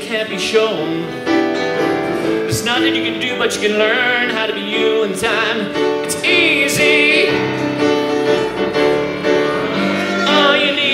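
A man singing with wavering, vibrato-laden notes, accompanying himself on a grand piano.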